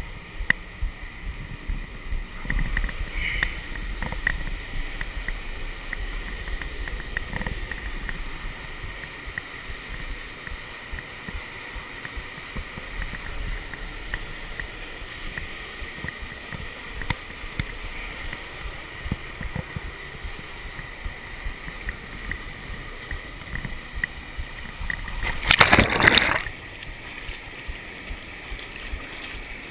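River rapids rushing over granite ledges, heard muffled through a GoPro waterproof housing, with scattered knocks and bumps. About 26 seconds in, a much louder splashing rush lasts about a second as the camera is brought down close to the whitewater.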